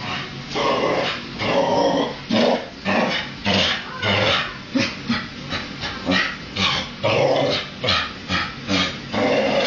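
Dog growling at a dishwasher in repeated short bursts, about two a second.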